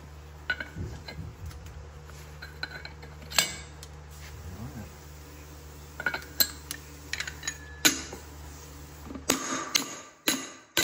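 Sharp metallic clinks of a liquid-nitrogen-chilled steel bearing cup race being handled and set into the bore of a Prevost bus wheel hub, with a metal race driver laid on top near the end. A steady low hum underneath cuts out about nine seconds in.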